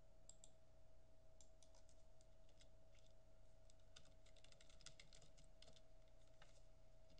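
Faint typing on a computer keyboard: quick keystrokes in scattered runs, busiest about four to six seconds in, over a steady faint hum.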